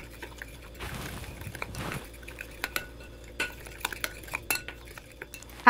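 A metal spoon stirring a wet spice marinade in a glass bowl: a scraping swish for about a second, then scattered light clinks of the spoon against the glass.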